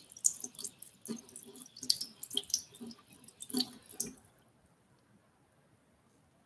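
Tap water splashing and spattering into a bathroom sink as a makeup brush is rinsed under it, in irregular splashes that stop about four seconds in.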